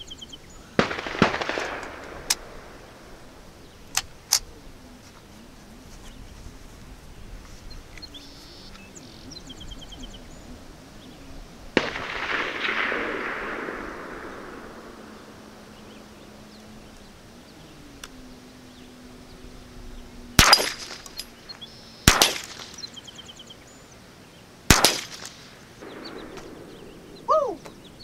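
Three shots from a Ruger 10/22 .22 LR semi-automatic rifle, about a second and a half and then two and a half seconds apart; these sharp cracks are the loudest sounds. Softer rustling and handling knocks come before them as the shooter settles in prone.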